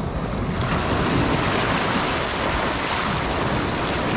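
Small sea waves breaking and washing up a sandy shore, the surf swelling and falling, with wind buffeting the microphone.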